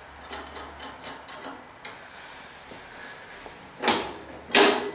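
A new nut being threaded by hand onto the drive-lever rod: small metal clicks and taps. Near the end come two louder, brief scraping sounds.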